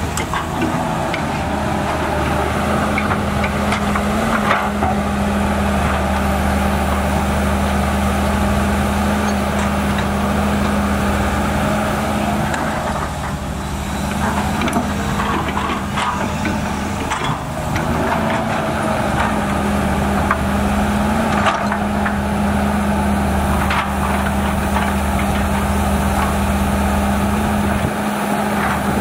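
Volvo EC210B LC excavator at work: its diesel engine runs steadily under load, with faint rising and falling hydraulic whines and occasional knocks and clunks as it digs.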